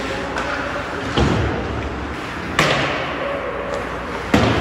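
Ice hockey play in an echoing indoor rink: three sharp bangs of the puck, sticks and players striking the boards and glass, about a second, two and a half and four and a half seconds in, the last the loudest, over a steady background of rink noise and faint voices.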